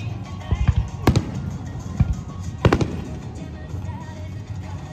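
Aerial firework shells bursting, several deep booms each trailing off in a rumble, the loudest about two and a half seconds in, over the music that the show is set to.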